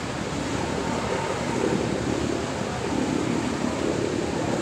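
Wind rushing across the microphone over open sea, with water noise, a steady unbroken rush.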